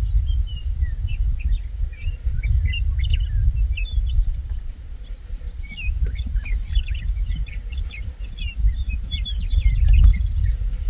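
Many small birds chirping, short quick notes scattered throughout, over a low rumble that rises and falls.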